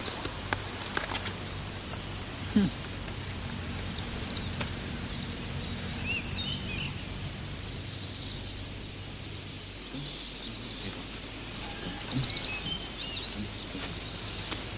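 Woodland birds calling: a short trilled call repeats about every two seconds, with faint chirps in between, over a steady low background noise.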